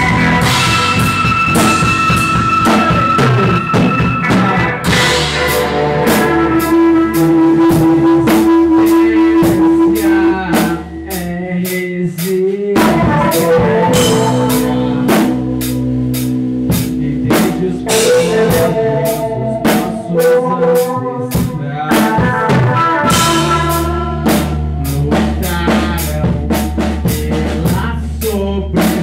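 Rock band playing live: drum kit, electric bass and electric guitars together, with a brief drop in the low end a little before halfway before the full band comes back in.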